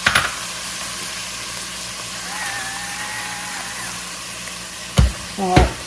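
Ground beef with seasoning and a little water sizzling steadily in a frying pan, with two sharp knocks about five seconds in.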